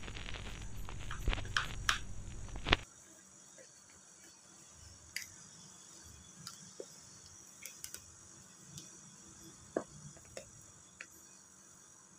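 Plastic squeegee rubbing and scraping over thin film on a scooter's speedometer cover, with crackles and clicks. About three seconds in the rubbing noise cuts off abruptly, leaving faint scattered ticks and taps over low room tone.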